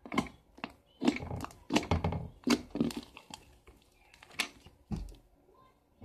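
Slime being squished, pulled and stretched by hand, giving a quick, irregular series of a dozen or so wet pops and squelches.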